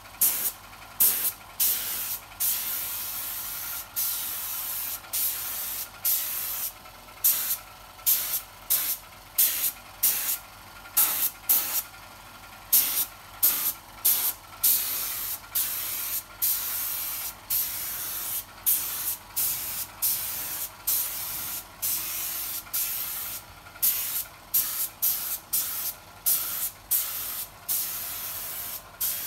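Compressed-air spray gun spraying finish onto carved wood. It hisses in many short trigger bursts, about one or two a second, with a few longer continuous sprays in the middle.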